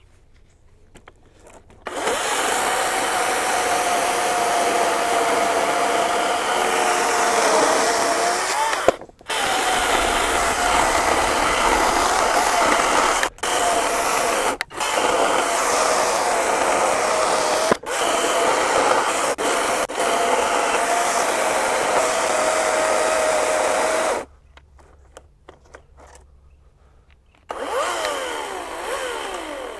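EGO 56V brushless battery chainsaw cutting through an oak log under load, its motor whine wavering as the chain bites, with a few brief breaks in the cut. It stops about 24 seconds in, then briefly spins up and down again near the end.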